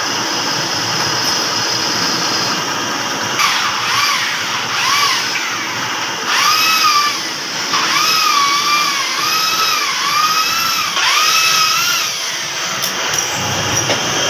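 Electric power tool motor whining in several short runs, its pitch sagging and recovering as it bites into the work, over a steady shop hum.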